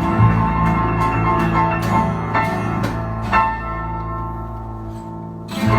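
Live band playing the last bars of a song: struck chords ring out and fade as the music winds down, then a final loud chord just before the end, which ends the song on a minor chord.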